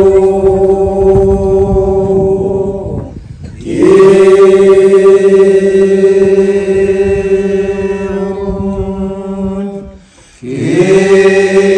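Group of voices chanting in unison in long held notes, each phrase sliding up into a steady pitch and held for several seconds, with short breaks about three and a half and ten seconds in. This is the chanted response of a blessing.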